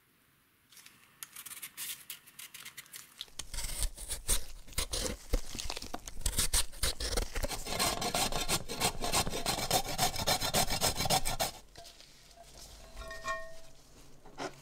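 Sweet potato being grated on a metal box grater: rapid, repeated rasping strokes that start about a second in, grow denser, and stop a few seconds before the end.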